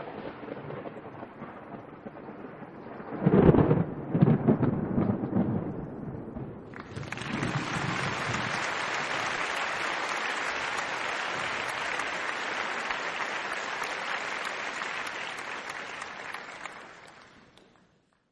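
Sound-effect thunder: a loud, low rumbling boom lasting a couple of seconds, followed by a steady hiss of rain that fades out near the end.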